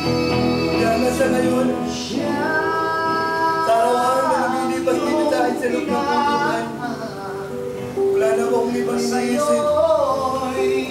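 Song music: a sung melody sliding between long held notes over sustained backing accompaniment.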